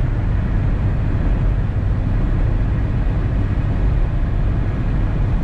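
Steady road and wind noise heard inside a car cruising at highway speed, a constant low rumble.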